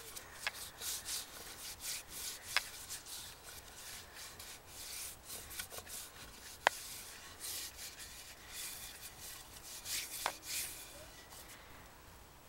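Bare hands rubbing boiled linseed oil into a wooden walking stick: a run of quick hissing strokes, with a few sharp clicks of hand against wood, the loudest midway. The rubbing dies away near the end.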